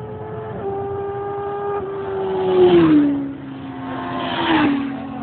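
Motorcycles going past at speed one after the other. Each engine note holds steady as it approaches, then drops sharply as it passes, the first about two and a half seconds in and the second about four and a half seconds in.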